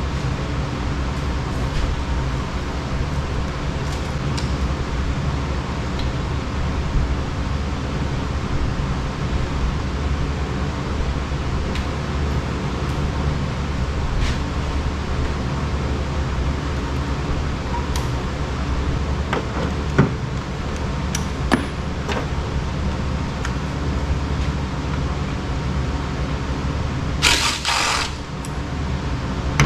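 Tools clicking and knocking on metal parts while a generator is dismantled, over a steady low hum, with a brief loud harsh rasp near the end.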